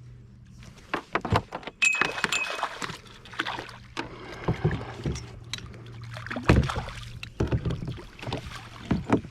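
Irregular knocks, clatter and water splashing in and against a small fishing boat, with a brief high squeak about two seconds in.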